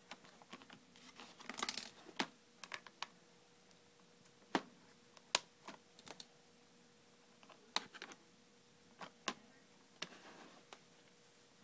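Hard plastic parts of a Matchbox Auto Center toy playset clicking and clattering as they are handled and snapped together: about a dozen sharp, irregular clicks, with a quick cluster near two seconds in.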